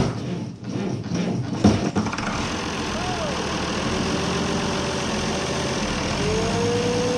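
International 1486 tractor's diesel engine cold-started on ether: it cranks and fires with a few hard knocks over the first two seconds, then catches and runs steadily. A whining tone rises and dips as it settles. It is loud and echoing in a metal building.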